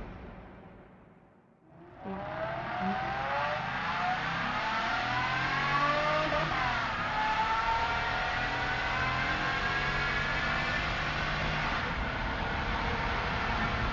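Car engine heard from the passenger seat, accelerating hard with its pitch rising from about two seconds in, a brief break in pitch around the middle, then climbing slowly and holding at high revs.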